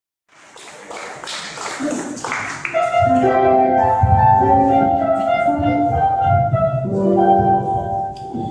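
Piano accompaniment playing a song's introduction, sustained notes and chords, starting about three seconds in after a short stretch of noisy rustle.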